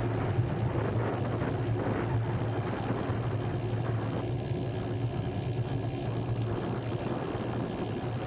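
A steady low engine drone with a wash of noise over it.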